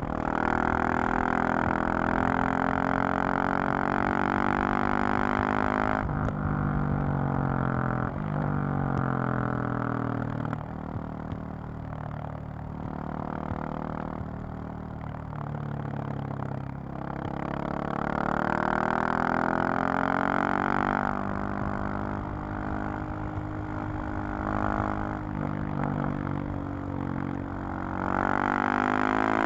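2020 KTM 690 SMC-R supermoto's single-cylinder engine and exhaust under way, the revs repeatedly rising and falling as the bike accelerates, shifts and rolls off the throttle. There is a quieter, lower-revving stretch in the middle, and the revs climb again near the end.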